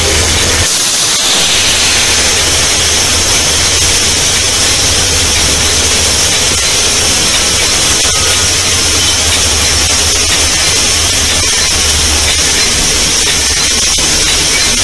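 Steady loud rushing noise with a low engine rumble underneath, picked up by a camera on the front of a moving locomotive: wind on the microphone over the locomotive's engine and running noise.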